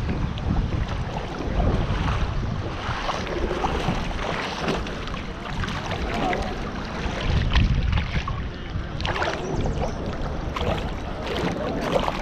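Fast river current rushing past, with wind buffeting the microphone and splashing as a hooked shad is grabbed by hand in the water.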